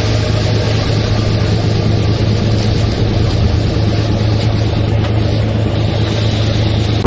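Patrol boat's engine running steadily alongside a ship, a deep hum under a broad rush of water and wind.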